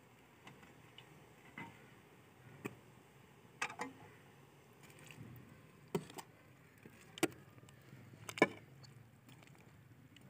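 A metal slotted spoon clinking against the aluminium cooking pot while stirring apples in simmering syrup. The sharp knocks are irregular and grow stronger in the second half, the loudest about eight seconds in.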